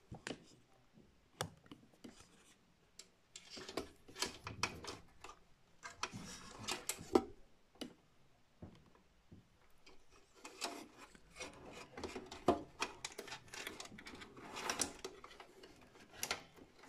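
A cable being worked through a tight gap in a computer's sheet-metal chassis beside the optical drive: irregular rubbing and scraping, with a few sharp clicks spread through.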